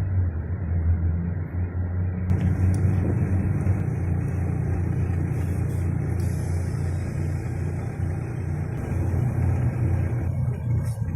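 Air compressor running steadily with a low hum, inflating a tire.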